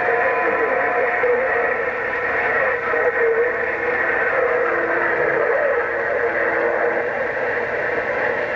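CB radio receiver hissing with steady band-limited static through its speaker between transmissions, with faint steady and wavering tones of weak distant signals buried in the noise.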